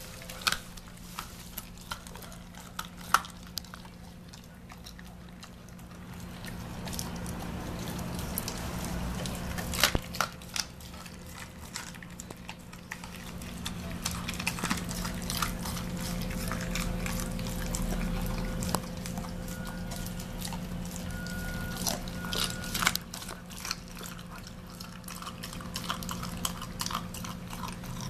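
German Shepherd dog chewing and gnawing a piece of raw chicken, with wet smacking and sharp crunches of bone at irregular moments. A steady low hum runs underneath.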